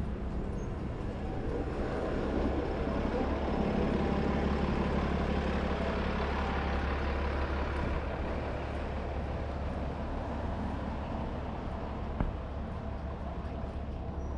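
City street traffic: a heavy road vehicle's engine rumbling close by over a steady low hum. It swells about two seconds in and eases off after the middle, with a single sharp click near the end.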